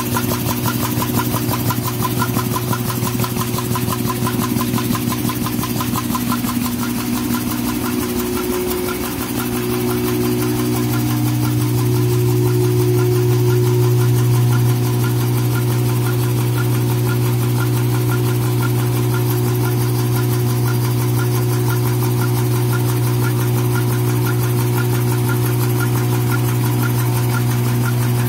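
XY-BT-288 high-speed N-fold hand towel paper machine running: a steady low hum with a rapid, even clatter from its rolls, the hum growing louder about a third of the way in.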